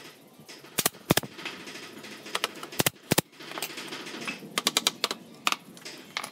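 Sharp knocks of pallet wood on wood as boards are set and tapped into place. There are about a dozen single knocks and quick pairs, with a tight run of four about three-quarters of the way through.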